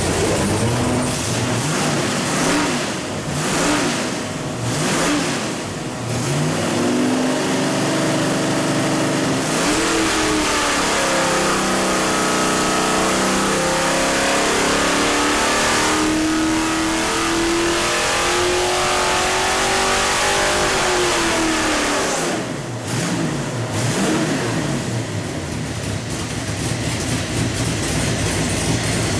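Small-block Chevy 383 stroker V8 running on an engine dyno. It gets a few short throttle blips, then a long pull with the revs climbing steadily for about ten seconds, then drops back to a lower speed near the end.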